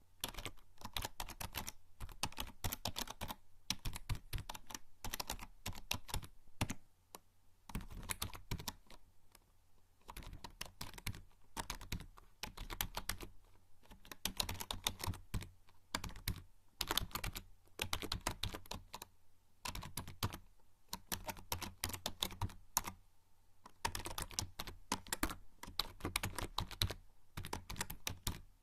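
Typing on a membrane computer keyboard: rapid runs of keystrokes broken every few seconds by short pauses.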